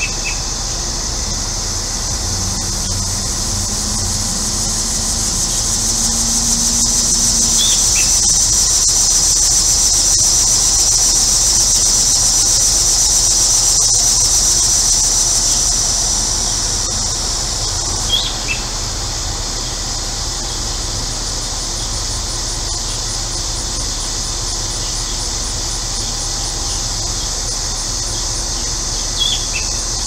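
Cicadas singing in a loud, steady chorus that swells over several seconds and then drops off abruptly a little past the middle. Three short bird calls break in, about ten seconds apart, over the low steady hum of an air conditioner.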